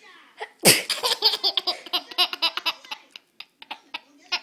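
A sudden loud burst a little under a second in, then a baby laughing in a fast run of belly-laugh pulses that trails off into short, scattered giggles.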